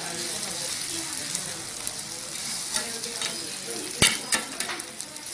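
Fried rice sizzling on a large round pan as a flat spatula stirs and scrapes it, with scattered scraping clicks. About four seconds in, the spatula knocks sharply on the pan, followed by a few lighter taps.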